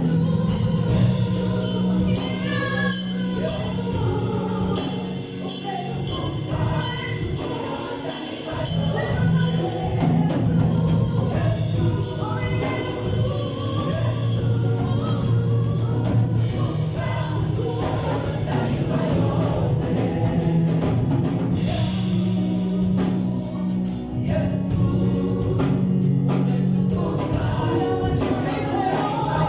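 Live gospel worship music: a choir singing to band accompaniment with a steady beat and bass.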